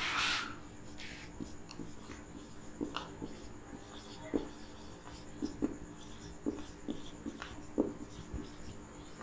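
Marker pen writing on a whiteboard: faint scattered squeaks and taps of the felt tip as letters are formed, with a short hiss at the very start.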